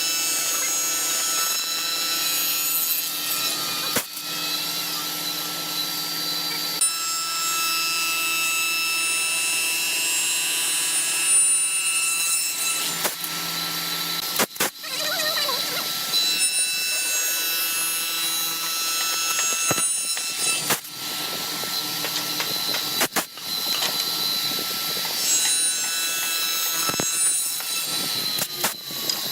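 Electric power tool cutting wood, running steadily with a few abrupt breaks.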